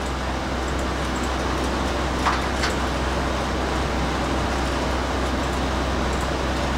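350 small-block Chevy V8 with a long-duration hydraulic flat-tappet camshaft running under load during a dyno pull, a steady engine noise heard from the control room through the dyno cell window.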